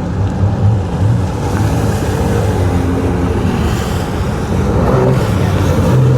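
A motor engine running steadily at low revs, with a deep, even hum.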